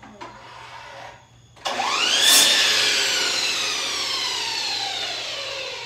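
Electric miter saw motor starting about a second and a half in with a fast-rising whine. It cuts briefly through a wooden slat, then coasts down with a long, slowly falling whine. A few faint knocks come before it starts.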